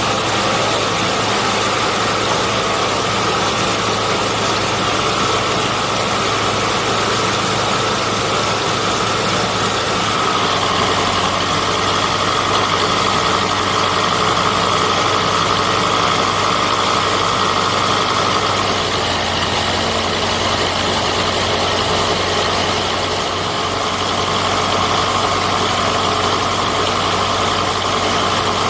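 Storch STOL light aircraft's piston engine and propeller running at taxi power, a steady drone. The engine note shifts slightly about ten seconds in and again a little before twenty seconds.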